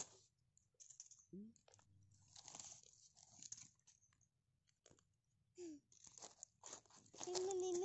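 Green husks being torn and peeled off fresh ears of sweet corn by hand: a string of separate crisp rips and rustles of leaf. A child's voice comes in near the end.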